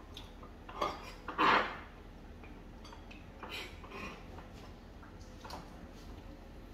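A few scattered clinks and knocks of dishes and utensils being handled on a kitchen counter, the loudest about a second and a half in.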